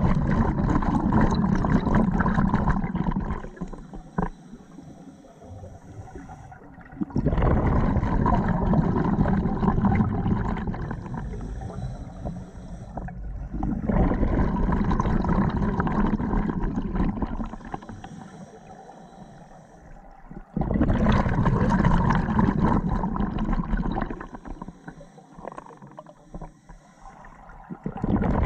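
Scuba diver breathing underwater through a regulator: a rush of exhaled bubbles about every seven seconds, each lasting several seconds, with quieter hissing inhales between.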